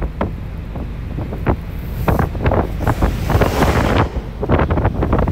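Wind rumbling on the microphone, with a string of irregular knocks and thumps that come thickest about two to four seconds in.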